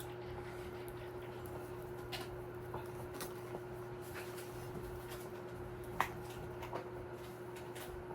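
A steady low hum with scattered light clicks and taps from handling, the sharpest about six seconds in.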